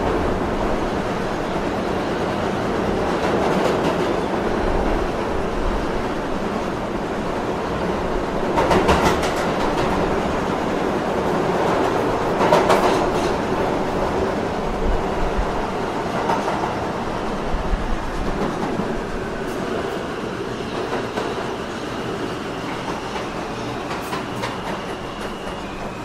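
Subway train running on the rails: a continuous rumble with wheels clattering over rail joints, and a few louder clacks about 9 and 12 seconds in. The sound eases slightly in the second half, and a faint steady high tone comes in over the last few seconds.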